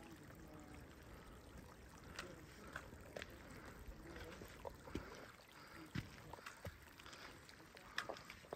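Faint footsteps on a loose gravel and stone path, with scattered irregular crunches and clicks of stones underfoot.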